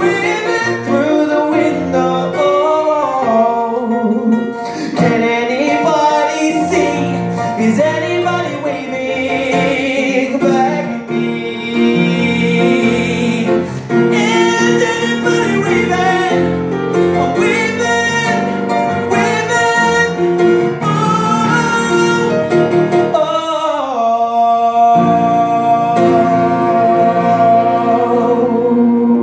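Male vocalist singing live into a microphone over instrumental accompaniment, with sliding vocal runs, ending on a long held note.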